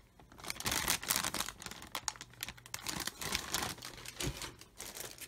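Clear plastic bags around injection-moulded model-kit sprues crinkling and crackling in irregular bursts as the bagged parts are handled and moved.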